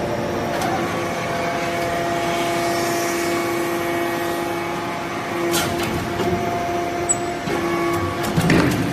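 Y83-4000 hydraulic briquetting press for aluminium fines running: a steady hum with a couple of sharp knocks, one about five and a half seconds in and one near the end.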